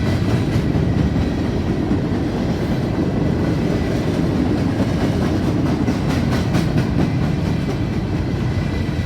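Railroad cars of a long train rolling past at a crossing: a steady rumble of wheels on the rails, with clicks over the rail joints.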